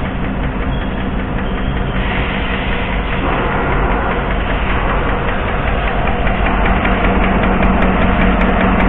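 V8 engine running at a steady idle with a rhythmic ticking from the valvetrain, which the mechanic suspects is a collapsed AFM valve lifter on cylinder 7 leaving its rocker arm stuck.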